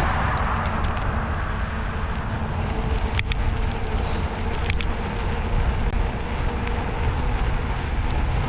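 Steady rushing noise of a fat bike being ridden: wind on the microphone and the rumble of the fat tyres rolling, with a couple of sharp clicks about three and four and a half seconds in.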